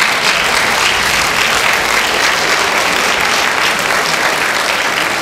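Audience applauding steadily, a dense clapping at the end of a stage number.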